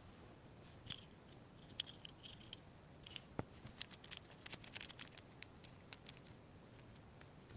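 Faint clicks and light rustling of small plastic miniature toy pieces being handled and set down, most of them in a quick cluster past the middle.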